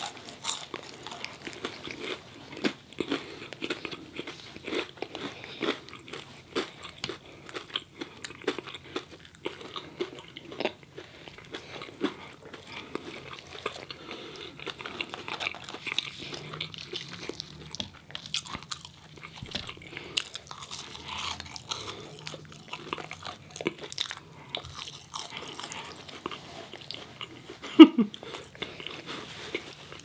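Close-miked chewing and biting of fried chicken fingers and crinkle-cut fries, many short crunches one after another. One sharp, much louder sound stands out near the end.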